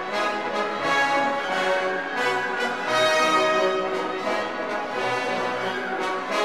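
Orchestral background music with prominent brass, playing held notes.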